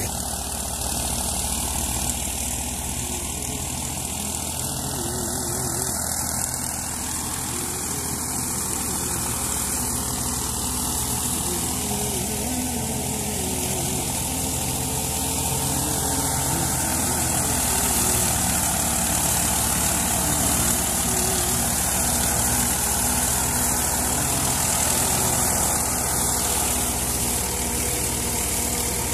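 Tractor-powered wheat thresher running steadily. The tractor's diesel engine turns the threshing drum and belts through the PTO, giving an even engine hum under a constant hiss.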